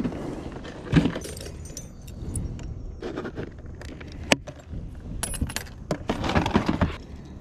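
Lures and hooks rattling and clattering in a plastic Plano tackle box as a hand rummages through it, with a few sharp plastic clicks from the box, the loudest a little past four seconds in.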